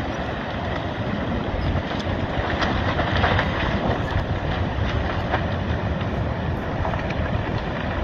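Steady loud rushing noise with a few faint clicks scattered through it.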